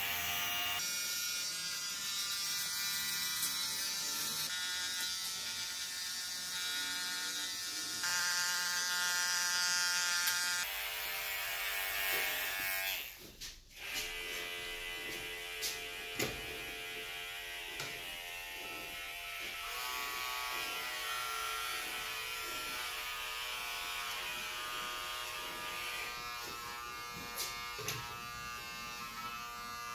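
Electric hair clippers buzzing steadily while cutting a boy's short hair. The buzz drops out briefly about halfway through, and a few light clicks come later.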